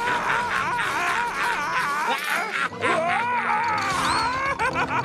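A cartoon character's male voice wailing and screaming in panic, a long wavering cry that slides up and down in pitch, over background music.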